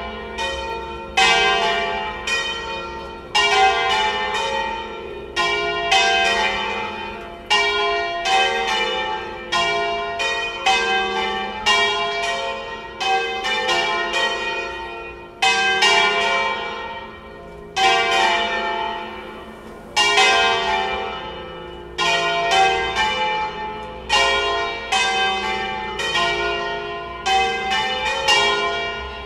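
A four-bell church peal in F3 rung in the Veronese style, with electrified bells swinging full circle, all four ringing together as a plenum. The Colbachini bronze bells strike about once a second in turn, each ringing on and overlapping the next.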